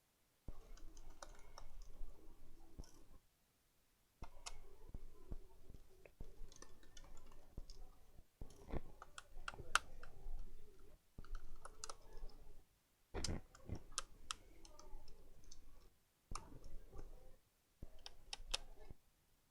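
Scattered light clicks and taps of small plastic and metal parts as an Acer E1-571 laptop is taken apart by hand, in irregular clusters with short pauses.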